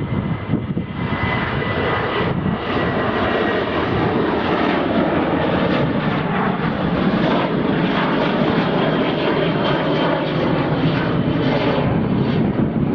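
Boeing 737-700's CFM56 jet engines at high power as it departs, a loud, steady roar that grows louder about a second in, with a faint whining tone over it.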